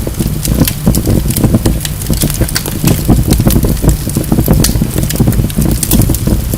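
Wood fire burning in a fireplace: constant crackling with many sharp pops of the burning logs over a steady low rumble.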